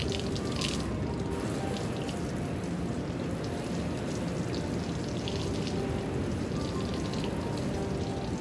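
A spray of water from a hose hitting the painted metal side of a pickup truck, a steady hiss with no breaks.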